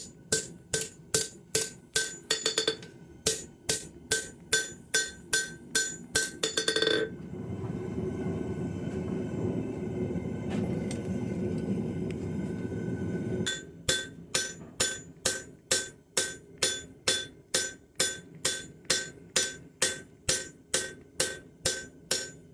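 Cross-peen hammer striking hot 52100 bearing steel on an anvil to spread the blade wider, about three blows a second with a bright ring. About seven seconds in, the blows stop and a steady rushing noise runs for about six seconds. Then the hammering resumes at the same pace.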